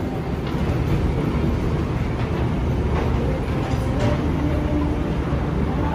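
Moving walkway running under foot with a steady low rumble.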